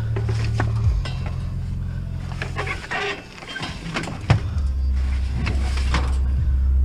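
A vehicle engine running steadily, its note stepping down about a second in and again around four and a half seconds, with scattered clanks and rattles of metal pieces.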